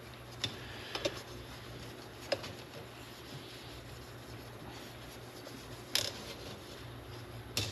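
Faint scattered clicks and light rubbing as a metal hood trim molding is handled and worked over by hand, over a low steady hum.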